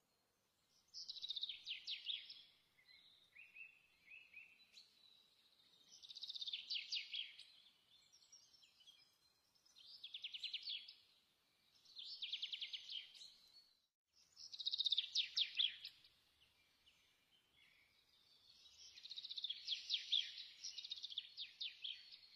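A small songbird singing: short phrases of rapid trilled notes, repeated every two to four seconds.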